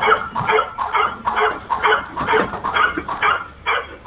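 A dog barking rapidly and repeatedly, about two to three barks a second, heard through a security camera's thin-sounding microphone.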